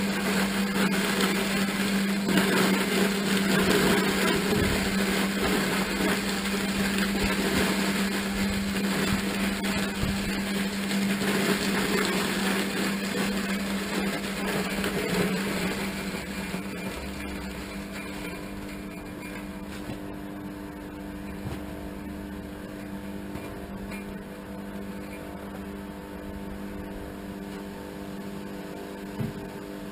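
Electric motor running steadily with a hum, under a noisier grinding rush that eases off about halfway through, leaving the hum and a few small knocks near the end.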